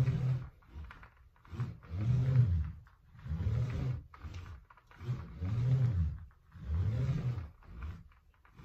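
Ab wheel rolling out and back across a hardwood floor: a rumble with each roll, in repeated swells under a second long, about one every second and a half.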